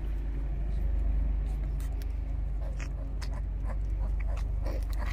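A steady low hum of an idling engine, with a few faint clicks over it.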